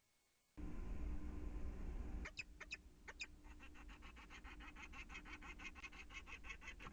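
Peregrine falcon giving rapid, evenly spaced 'kak-kak-kak' calls, about seven a second, after a few single calls: alarm cacking at an intruder. A low rumble fills the first second and a half before the calls.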